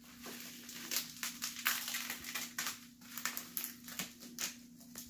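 Packaging crinkling and rustling in quick irregular crackles as a wrapped item is handled and pulled at.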